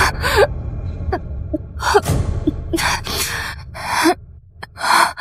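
Heavy gasping breaths, about one a second, each a short rush of breath noise.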